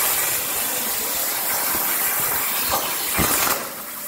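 CNC plasma cutter torch cutting metal plate: a loud, steady hiss of the arc and its air jet, with a few crackles, that cuts off about three and a half seconds in as the arc shuts off.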